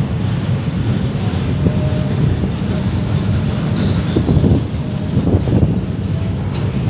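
Container-laden freight wagons rolling slowly over the rails, a continuous rumble of wheels and couplings. A brief high wheel squeal comes about four seconds in.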